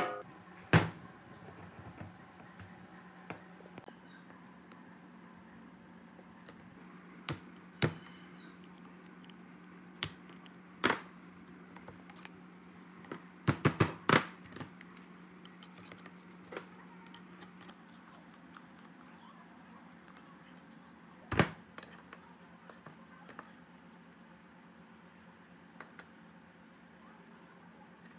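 Metal clinks and knocks of hand tools and parts during disassembly of an air compressor's tank and cast-iron pump head, scattered and sharp, with a quick cluster about halfway. A steady low hum runs under the first two-thirds and stops, and faint short high chirps come now and then.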